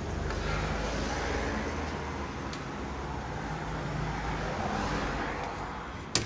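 Steady low mechanical drone of a motor or engine running, with a sharp knock at the very end.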